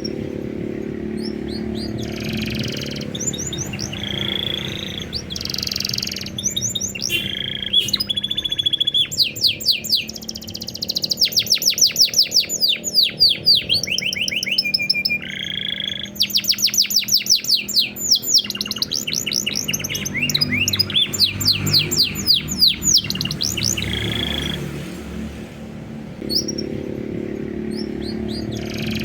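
Domestic canary singing a long, varied song: fast trills of rapidly repeated sweeping notes, buzzy rolls and short held whistles, one phrase after another.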